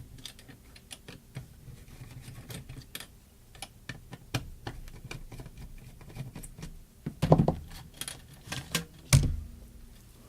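Hand tools and wires being handled at a workbench: scattered light clicks and taps, with two louder clunks about seven and nine seconds in.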